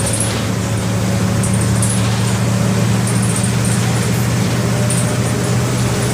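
MWM 4.12 TCE four-cylinder inline turbodiesel of a Volksbus 15-190 EOD bus running with a steady, unchanging low engine note over road noise.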